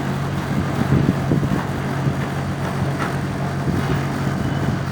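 Zanussi TDS 382W tumble dryer running: a steady low motor hum with the drum turning, and a few faint knocks about a second in.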